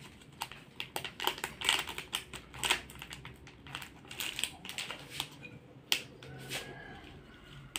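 Small paper-and-plastic gulaman powder packet being handled and torn open by hand: irregular light crinkles, rustles and clicks.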